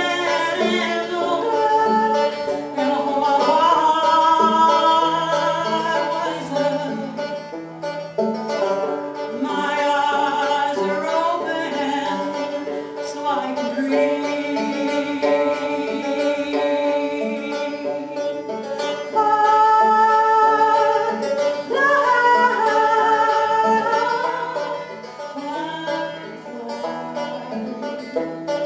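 A woman singing a folk song while playing a banjo, sung phrases coming and going over a steady picked banjo accompaniment.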